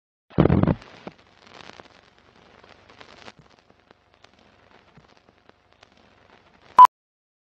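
Old-film countdown leader sound effect: a loud low burst of noise about half a second in, then sparse faint crackles and pops like worn film running through a projector, ending with one short, loud beep near the end, the countdown's sync beep.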